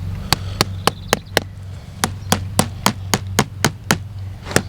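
A hammer striking metal ground staples, driving them through weed-suppressing fabric into the ground. Sharp, even blows at about four a second, in two runs with a short pause between them.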